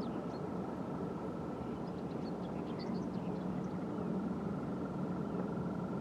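Steady low drone of chalk-mine machinery with a thin, steady whine running through it, and scattered short high bird chirps on top.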